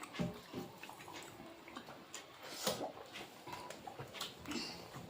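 Quiet eating sounds: scattered soft smacks and small clicks of chewing and of food being eaten by hand.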